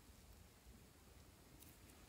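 Near silence, with a couple of faint sticky clicks about a second and a half in as clear glitter slime is stretched between the fingers.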